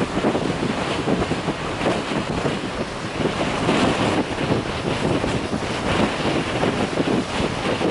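Gale-force northeaster wind buffeting the microphone in gusts, with storm waves breaking against the shore beneath it.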